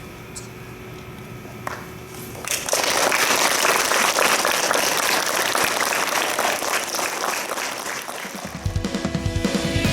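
Audience clapping, starting about two and a half seconds in and running steadily for about six seconds. Near the end, music with a guitar and a drum beat starts.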